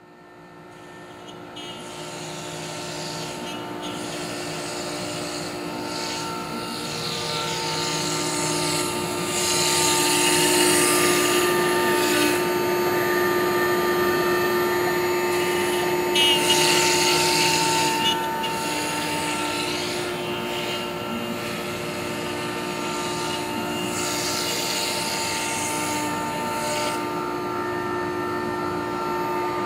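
AXYZ 4012 CNC router running: a steady multi-tone machine whine from the spindle and drives, with a hiss from the bit cutting a white sheet that swells louder in a few stretches. The sound fades in at the start.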